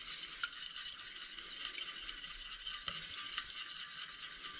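Metal spoon stirring and scraping through gelatine in a stainless steel pot, with a few light clicks of the spoon against the pot's side, as the clumped gelatine is worked into warm liquid to dissolve.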